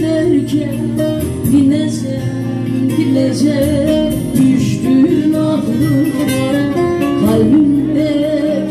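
Live music: a woman singing a Turkish song into a microphone over a band with guitar, the melody wavering and ornamented.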